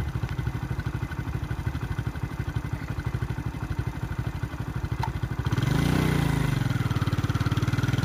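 A vehicle engine idling steadily with a low, even pulse. Around six seconds in, it swells and rises in pitch, then falls back.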